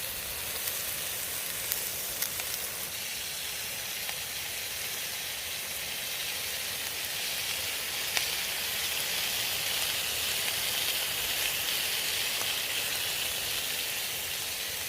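Sirloin steak with tomatoes and mushrooms sizzling in a frying pan: a steady hiss with a few faint pops, growing a little louder about halfway through.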